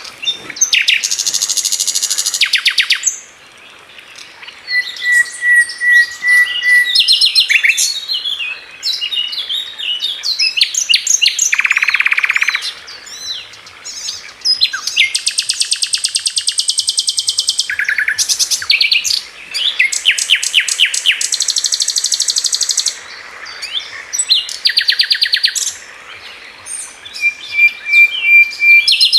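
Songbirds singing: rapid high chirping trills and buzzy runs in quick succession, with a held whistled note twice.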